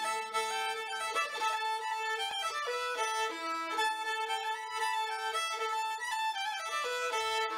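Background instrumental music: a fiddle plays a tune of held and stepping notes.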